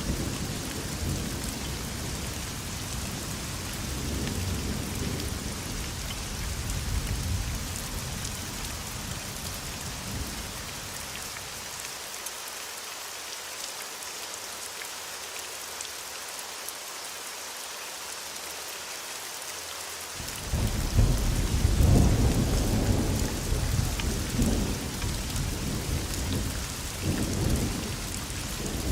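Steady rain hissing, with thunder rumbling low beneath it. The rumble fades out about eleven seconds in, leaving only rain, then a louder peal of thunder comes in about twenty seconds in and rumbles on for the rest of the time.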